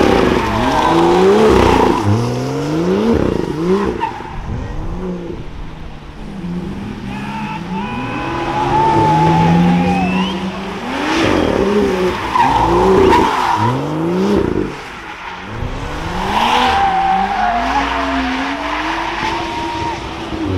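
Car engines revving hard, the pitch sweeping up and down again and again, as cars drift through a roundabout. Wavering tyre squeal comes in twice, once near the middle and again toward the end.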